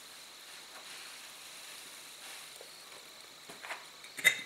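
Quiet room tone with the drill idle, then a few light clinks against the glazed ceramic jar near the end, the loudest just before the end.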